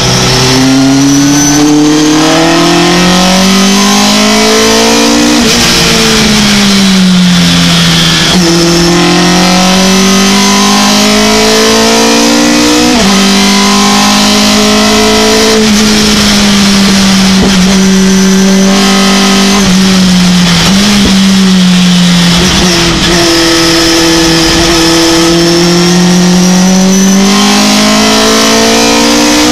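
Racing pickup truck's engine heard from inside the cab at full race pace, its pitch climbing under acceleration and dropping sharply at each gear change, then easing off into corners, several times over.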